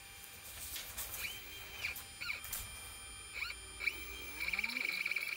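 Glowforge laser cutter running, its motors whining in pitches that rise and fall as the laser head sweeps along the curved cuts, over a steady high tone.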